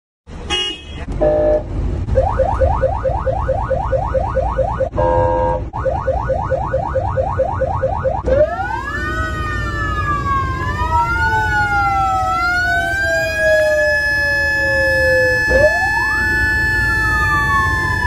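Siren sounding a fast yelp of rising chirps, about six a second, broken twice by a short steady blast. About eight seconds in it changes to a slow wail, several overlapping tones rising and falling.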